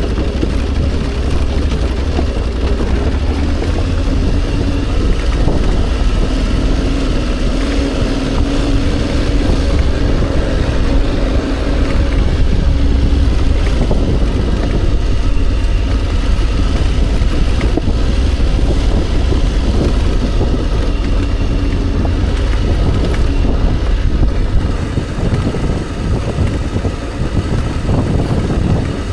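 Motorcycle engine running steadily at low revs with its pitch wavering, under heavy wind rumble on the microphone. It gets a little quieter near the end.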